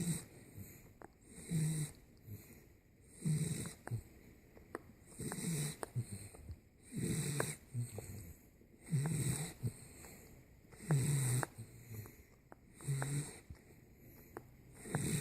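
A 10-week-old Boxer puppy snoring in its sleep: a short, low snore about every two seconds, eight in all. Faint clicking sucks from the puppy suckling in its sleep fall between some of the snores.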